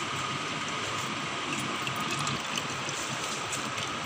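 Water trickling from a cotton-cloth bundle of fresh chhena as it is wrung out over a metal mesh sieve, steady throughout, over a constant background hiss.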